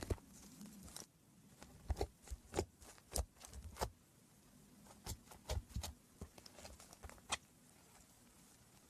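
Slime being squeezed and pressed by hand, giving irregular sharp pops and clicks in quick clusters that stop near the end.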